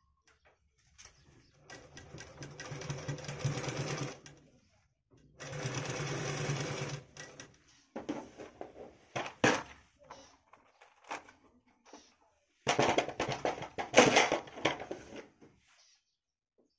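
Bharat sewing machine stitching in four short runs of a few seconds each, the last one the loudest, with pauses and a few scattered clicks between the runs.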